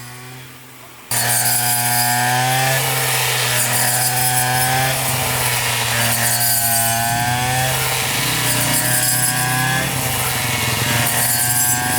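A motor-driven machine runs loudly with a steady hum. Its pitch sags and recovers about every two seconds, as if it is working through material under load. It starts abruptly about a second in.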